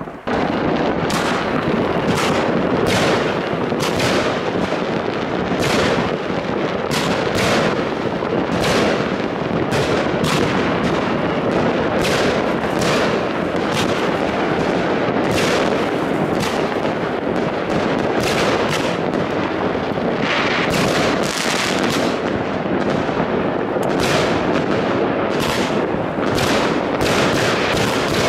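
Firework battery firing a dense, unbroken run of shots and aerial bursts, starting suddenly and keeping up at a steady loud level with sharp reports about one or two a second over a continuous din.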